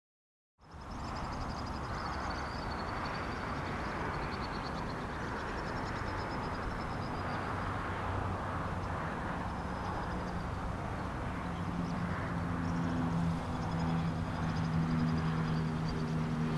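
Outdoor background of steady traffic noise with high chirps at times. In the last few seconds a vehicle's engine hum grows louder.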